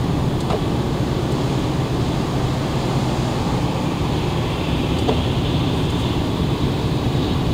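Lada Granta driving on a wet road, heard from inside the cabin: a steady low engine hum mixed with tyre noise.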